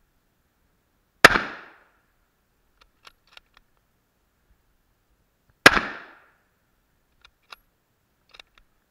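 Two shots from a Mauser bolt-action scout rifle (Yugoslav M24/47, 7.92×57mm Mauser), about four and a half seconds apart, each a sharp crack with a short decaying echo. Between and after the shots come a few light metallic clicks of the bolt being worked.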